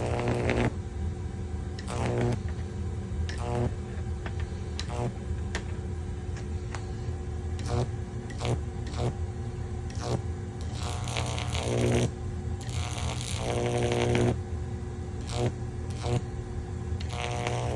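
High-voltage arc from a microwave oven transformer (about 2,700 volts) drawn between a nail and a copper tip: a steady deep mains buzz with crackling, the arc swelling louder and breaking off again every second or two.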